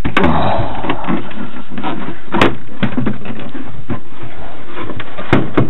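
Handling noise from the plastic RC boat: rustling and scattered sharp plastic clicks, with two clicks close together near the end.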